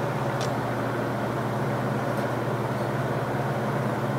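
An electric shop-machine motor running steadily with a low hum. A faint small click about half a second in.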